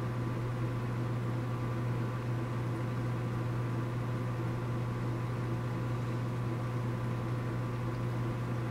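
Steady low hum of a small electric motor running, with fainter steady tones above the drone.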